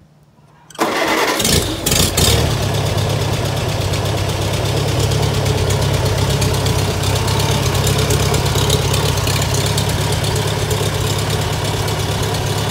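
A 1953 Farmall Super C's four-cylinder gasoline engine cranks on the starter with the choke on and catches within about a second. It surges a few times, then settles into steady running: a cold start after sitting about four weeks.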